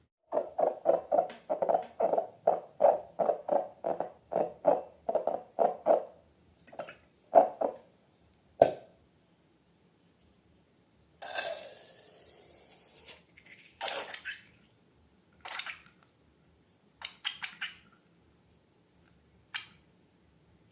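Slime being squished by hand: a quick run of wet squelches, about three a second for the first six seconds, then a few slower ones, a hiss lasting about two seconds past the middle, and scattered short squelches near the end.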